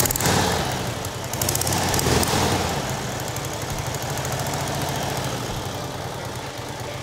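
1934 Harley-Davidson flathead side-valve engine just after kick-starting, revving up twice in the first couple of seconds, then settling into a steady idle.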